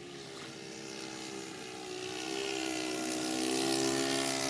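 Radio-controlled model floatplane flying overhead, its motor and propeller making a steady drone that grows louder as it closes in. It is loudest near the end, with a slight drop in pitch as it passes.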